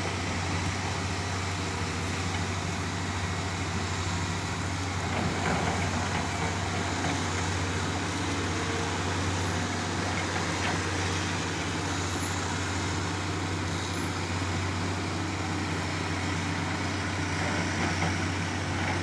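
Tamrock rock-drilling rig running steadily: a continuous heavy machine drone with no pauses.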